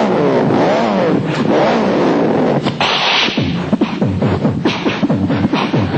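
A man making sound effects with his voice, beatbox-style: wavering pitch glides, a sharp hiss about three seconds in, then a run of quick falling swoops.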